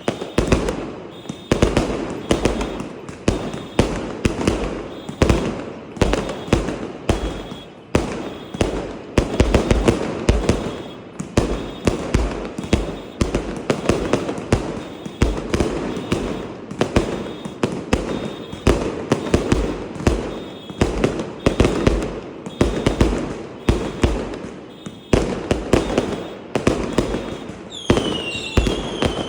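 Fireworks going off in a continuous, irregular barrage of loud bangs, several a second.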